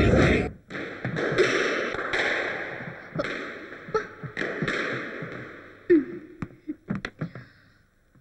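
Squash ball being played: a run of sharp, irregular hits of ball on racket and court walls, each echoing in the court, thinning out near the end.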